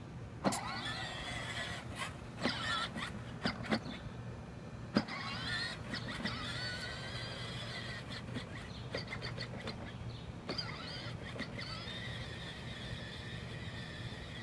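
Power Wheels Dune Racer's 12-volt electric drive motors and plastic gearboxes whining steadily on low speed, with scattered clicks and knocks as it rolls over the grass.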